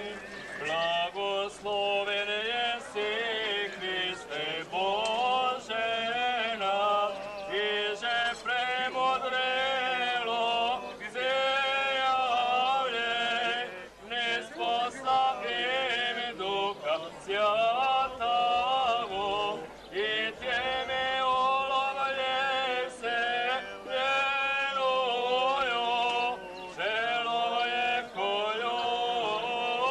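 Male voices chanting an Orthodox liturgical hymn, a sung melody in long phrases with short breaks between them.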